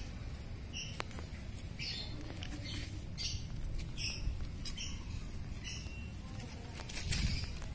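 Short, high-pitched squeaky calls repeating roughly once a second, over a low rumble.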